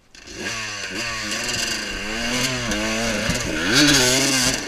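KTM 200 two-stroke enduro motorcycle engine starting just after the beginning, then revved up and down in uneven blips, loudest near the end.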